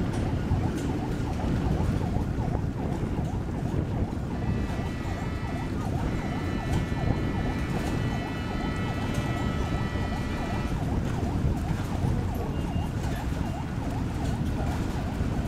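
A fast, repeating warbling siren over a loud low rumble, with a steady horn tone held for about six seconds in the middle.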